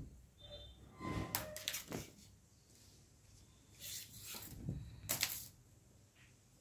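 Velvet suit fabric rustling and swishing as it is shaken out and spread flat on a cutting table, in two spells: about a second in, and again from about four to five and a half seconds in.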